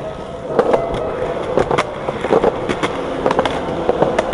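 Skateboard wheels rolling over concrete, with repeated sharp clacks and knocks of the board and wheels striking the ground.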